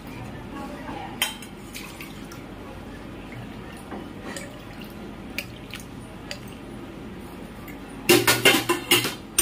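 Stainless steel kitchen vessels clinking as they are handled, with a few light knocks, then a rapid run of loud metallic clattering near the end.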